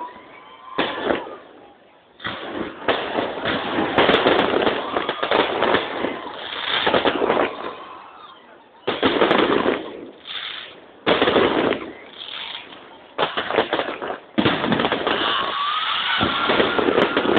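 Fireworks display: volleys of bangs and crackling that break off and restart every second or two, merging into a continuous barrage over the last few seconds.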